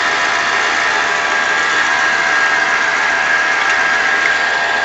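Running Lada Niva engine heard through a homemade engine stethoscope (aluminium rod and plastic funnel) with the probe on the alternator: a steady mechanical whir with a steady high whine over it.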